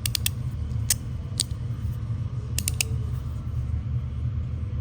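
Resin-printed magnetic fidget slider (the regular, loud version) snapping back and forth, giving sharp clicks: a quick triple at the start, single clicks about one and one and a half seconds in, and another quick triple near three seconds. A steady low rumble sits underneath.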